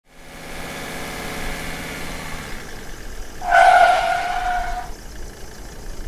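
A vehicle engine running at a steady pitch, stopping about two and a half seconds in, then a single horn honk lasting about a second.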